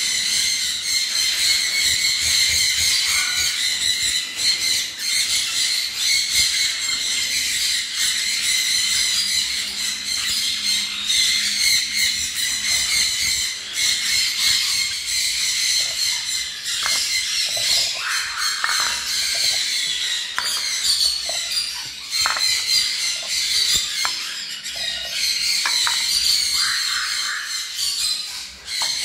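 A flock of caged parrots, sun conures among them, chattering and squawking without a break: a dense high-pitched mix of many overlapping calls, with a few louder, separate squawks in the second half.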